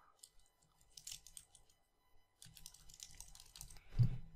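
Typing on a computer keyboard: a short run of keystrokes about a second in, then a longer run, ending in a louder thump about four seconds in.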